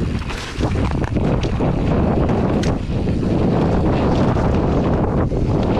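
Wind buffeting the microphone of a mountain biker's action camera at riding speed, a loud, dense rumble broken by scattered knocks and clicks from the bike over rough ground.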